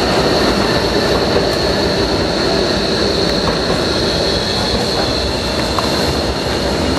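Steady city street noise, a loud rumble with a continuous high-pitched whine over it.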